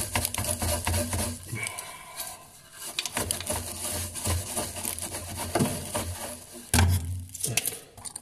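Small hand brush scrubbing rust off a rusted, rounded-off bolt on a car's fuel filter bracket: rapid scratchy rasping that pauses briefly and comes back, with a louder knock about seven seconds in.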